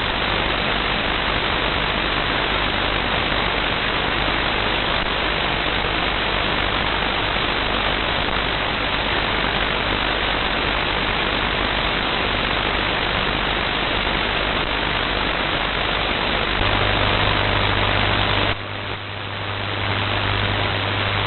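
Shortwave radio receiver putting out a loud, steady rushing noise: the interference that wipes out reception from about 5.5 to 13.6 MHz. A low hum comes in near the end, and about two seconds later the noise drops away for a moment before coming back.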